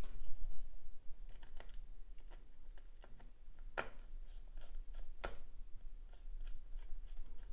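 Small clicks and taps of hands seating a 2.5-inch laptop hard drive in an opened MacBook's drive bay, metal and plastic parts knocking together, with two louder clicks about four and five seconds in.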